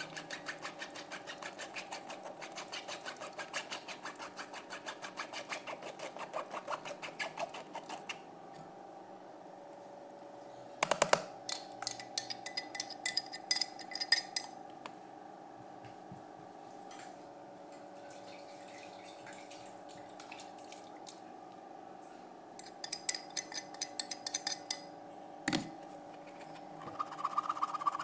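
A spoon scraping fast and evenly in a sieve, working blended guava and pineapple pulp so the juice runs through into a plastic jug. After a quieter stretch come two clusters of sharp clinks and taps on the sieve, and one knock.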